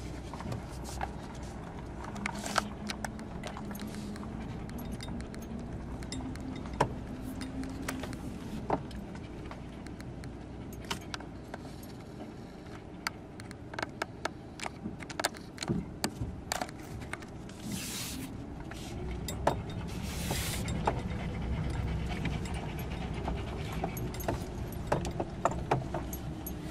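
Car heard from inside the cabin on a rough road: the engine runs with a steady hum that rises and falls in pitch past the middle, while loose things in the car rattle and click with the bumps. Two short hissing bursts come past the middle.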